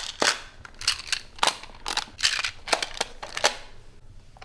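Plastic magnetic building tiles clacking against each other as they are snapped together and set in place: a quick, irregular series of sharp clicks.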